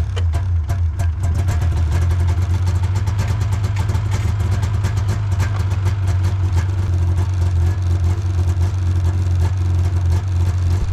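Polaris Indy 500 snowmobile's two-stroke engine idling steadily, freshly started after repairs.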